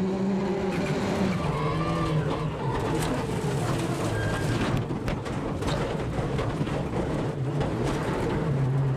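World Rally car engine running at low, wavering revs, with a few sharp knocks about three and five seconds in.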